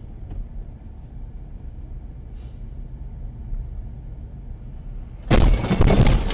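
Steady low rumble of a car driving, then about five seconds in a sudden loud crash lasting about a second, typical of a collision.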